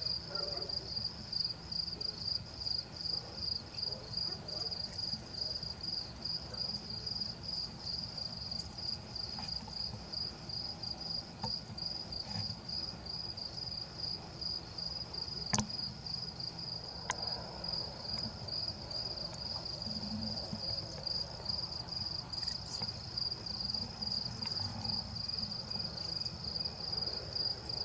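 A cricket chirping: a high, evenly pulsed trill repeating steadily. One sharp click comes about halfway through.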